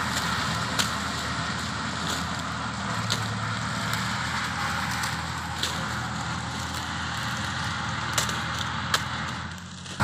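Sugarcane harvester's diesel engine running steadily under load, with the clatter of the machine and a few sharp clicks from the cane handling. The level drops briefly near the end.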